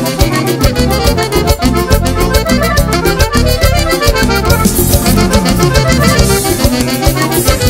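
Cumbia band playing an instrumental passage, a button accordion carrying the lead melody over bass and drums with a steady, even beat.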